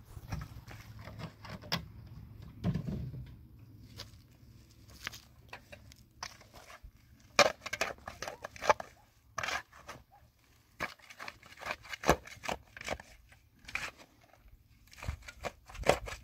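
Irregular knocks, scrapes and crunches of stones and mud being handled by hand while building a wall. A heavier knock comes about three seconds in, and bursts of sharp clacks follow in the second half.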